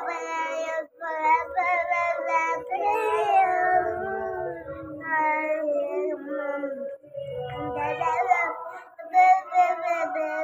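A young boy singing in a high voice, holding long, wavering notes.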